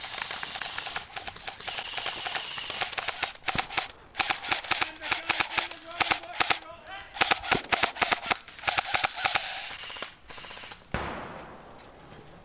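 Airsoft guns firing rapid full-auto bursts, a fast rattle of sharp clicks repeated in several bursts. The firing stops near the end.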